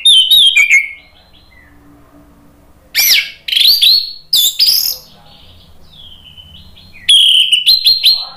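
Orange-headed thrush (anis merah) singing loud phrases of whistled notes that slide up and down, in three bouts: right at the start, again about three seconds in as a string of short phrases, and once more about seven seconds in.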